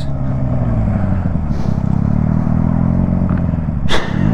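A 125 cc two-cylinder chopper's engine running on engine braking as the bike slows, its note dipping and then holding fairly steady. A brief rush of noise comes about four seconds in.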